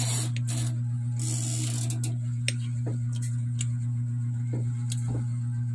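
A steady low hum with a few scattered light clicks and a short hiss about a second in.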